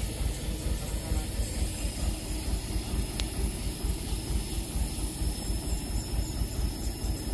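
Dump truck's diesel engine running with a steady low rumble while the truck sits stuck in deep mud.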